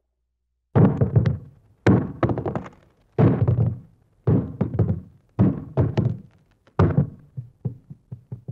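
Cartoon sound effect of heavy, hollow thunks: about six hits roughly a second apart, each followed by a quick rattle of smaller knocks that dies away. A fast run of light taps comes near the end.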